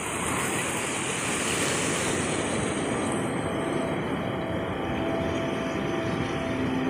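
Ocean surf washing in over rocks and sand at the shoreline: a steady rushing noise. Faint music with long held notes comes in over the last few seconds.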